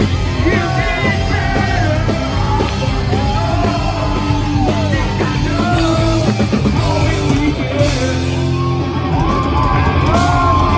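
Live punk rock band playing loud, with sung and yelled vocals over distorted guitars, bass and drums, heard from within the crowd.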